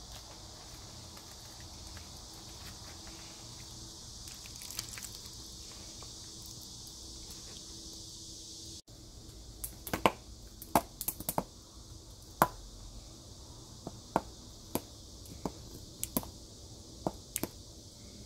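Faint steady hiss for about the first half. After that, a plastic squeeze bottle of chojang sauce gives a run of sharp, irregular pops and clicks as thick sauce and air spurt from its nozzle.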